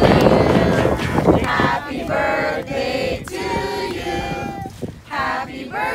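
A group of children and adults singing together in long held notes, after a loud burst of noise at the start.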